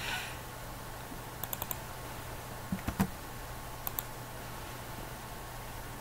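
A few light clicks from computer keys or a mouse: a quick triple click about one and a half seconds in, two more around three seconds, and a double click near four seconds. They sit over a faint steady low hum.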